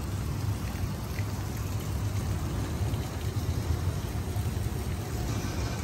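Steady outdoor noise: a fluctuating low rumble with an even hiss above it and no distinct events.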